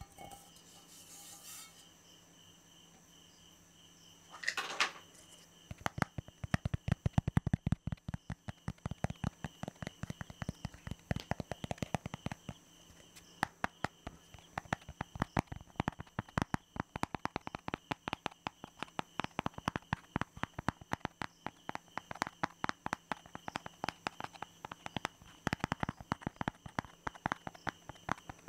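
Fast, aggressive tapping by hand: rapid sharp taps, several a second, in uneven runs, beginning about five seconds in after a short swishing sound.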